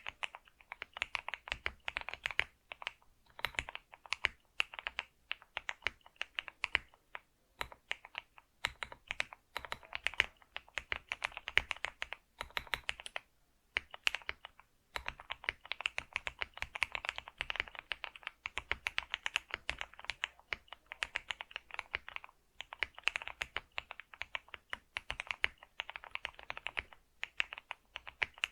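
Typing on a computer keyboard: a fast, continuous stream of key clicks with a few brief pauses, the longest about a second long near the middle.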